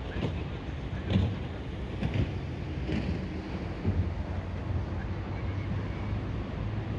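Wind on the microphone over a steady low engine hum, with soft footsteps about once a second.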